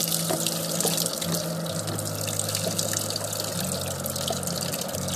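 Rain falling steadily: a dense hiss of water with many small drips and splashes, over a low steady hum.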